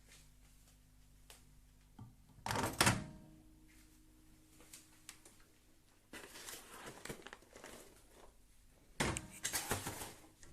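Microwave oven door and handling clunks after the popcorn has finished: a loud clunk about two and a half seconds in, a spell of small knocks and rattles around six to seven seconds, and another clunk near the end.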